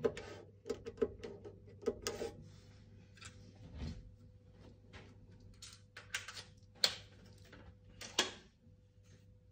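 Irregular clicks and knocks of equipment being handled, a few louder ones scattered through, over a faint steady hum.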